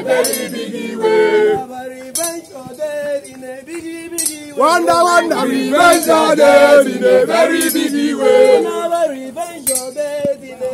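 Male voices singing a chant-like song, with sharp clinks on a slow, even beat about every second and a half.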